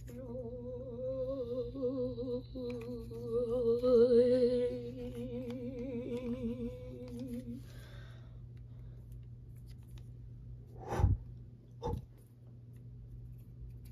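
A person humming a wavering tune for about seven and a half seconds, then two short, low thumps a second apart near the end.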